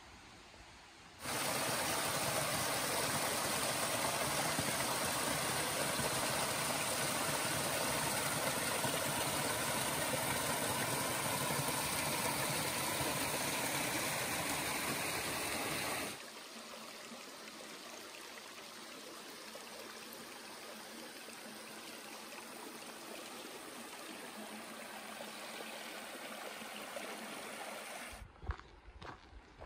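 Small forest creek running and splashing over rocks, a steady rush of water that starts about a second in and drops to a softer wash about halfway through. Near the end it gives way to a few footsteps on the trail.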